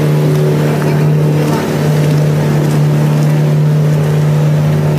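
Riverboat engine running steadily under way, a low even drone heard from on board.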